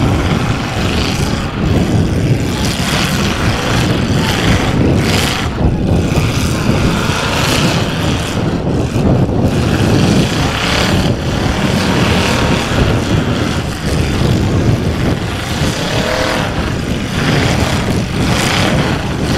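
Engines of several demolition derby cars running loudly together in a dense, steady din.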